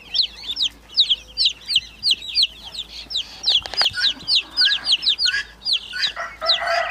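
A crowd of young poultry (ducklings, chicks and guineafowl keets) peeping continuously: short, high-pitched calls that slide downward, several a second. A lower, rougher call joins near the end.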